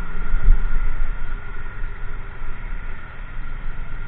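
Motorcycle ride heard from the rider's helmet camera: the engine running with a steady low rumble of wind on the microphone, and a loud low thump about half a second in.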